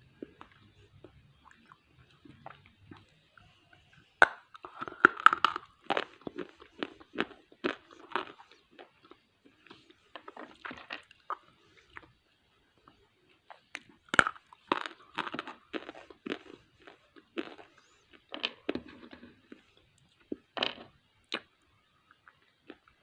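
Crunchy bites and chewing of roasted multani mitti (fuller's earth clay): a sharp bite about 4 s in and another about 10 s later, each followed by several seconds of dense, irregular crunching.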